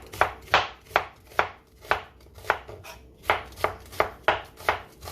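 Knife chopping onion on a cutting board: about a dozen sharp, steady strokes, two or three a second.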